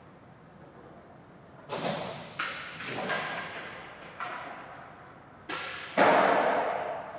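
Skateboard: about six sharp clacks and thuds of the board, each trailing off over about a second, starting about a second and a half in, with the loudest about six seconds in.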